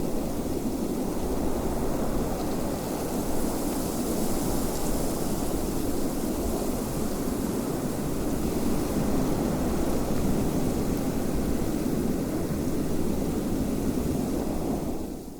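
Steady rushing wind, a dense even roar weighted toward the low end, fading out at the very end.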